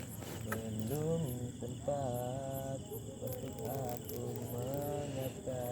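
Crickets or other insects chirring steadily in a high-pitched chorus. Over it come short voice-like sounds that waver in pitch, on and off, from about half a second in.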